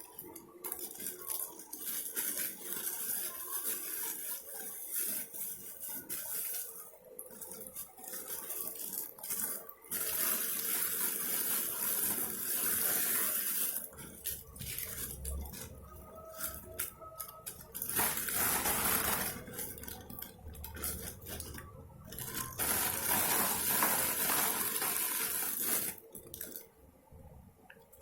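Water running in several spells of a few seconds each, with clinks and knocks of dishes and cutlery in between.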